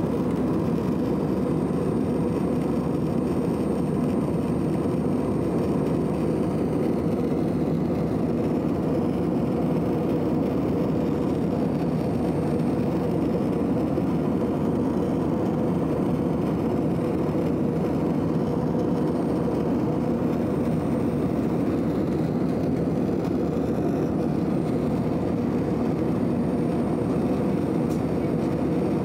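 Loud, steady cabin noise of an Airbus A320-family jet airliner in flight, heard from a window seat over the wing: engine and airflow rush with a steady hum running through it and no change in level.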